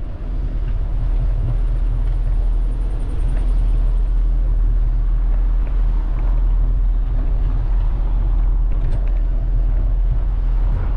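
Street ambience recorded from a bicycle riding through the city: a steady low rumble with traffic noise, and a few faint clicks near the end.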